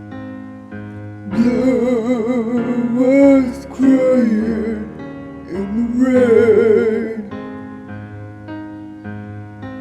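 Slow country ballad played by a band: steady keyboard chords under a lead melody with vibrato, in three phrases, the first starting about a second in.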